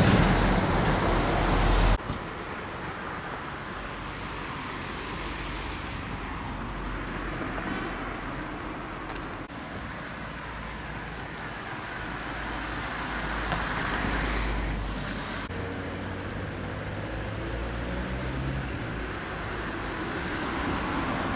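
Road traffic: cars passing along the street, the noise swelling and fading twice as vehicles go by. For about the first two seconds, wind buffets the microphone, ending abruptly at a cut.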